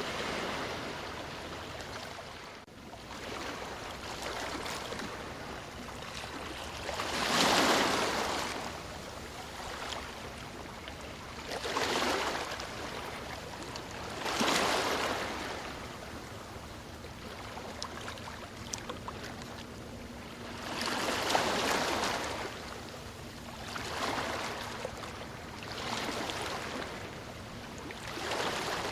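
Ocean waves breaking and washing in one after another, each swelling up and fading every few seconds, with two louder breakers among them.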